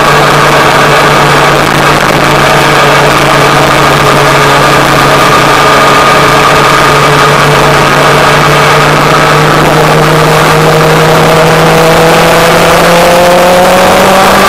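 Motorcycle engine running at a steady cruising speed over a constant rush of wind and road noise. Its pitch climbs slowly over the last few seconds as the bike speeds up.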